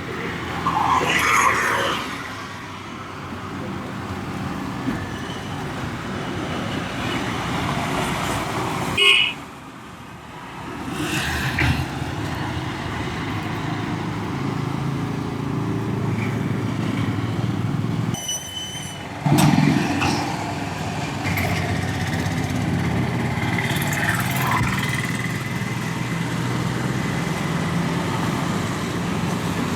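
Street traffic noise with vehicles passing and horns honking now and then.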